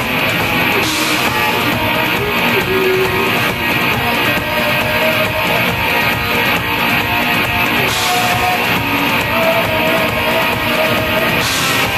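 Rock band playing live and loud: electric guitars and a drum kit, with a woman singing over them in the second half.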